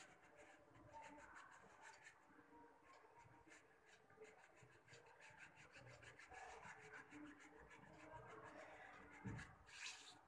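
Near silence with the faint rubbing of a fine paintbrush's short strokes on canvas, repeating unevenly; a soft low thump comes near the end.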